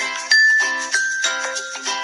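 Background music: a light tune of separate bright notes, each starting sharply and fading, a new note every half second or so.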